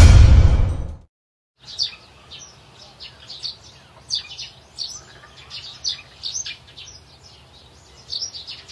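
Small birds chirping, many short high calls in quick irregular succession over a faint low hum. Electronic music fades out in the first second and is the loudest thing.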